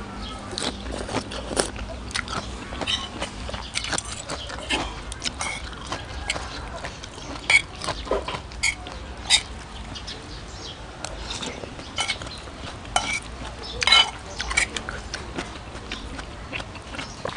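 Close-miked wet chewing of a mouthful of rice noodles in coconut curry, full of small mouth clicks. A few sharper clicks of a metal spoon and fork against the plate stand out.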